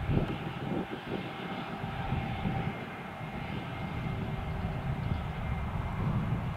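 Airbus A319CJ jet engines running at low taxi power as the jet rolls past: a steady whine over a low rumble.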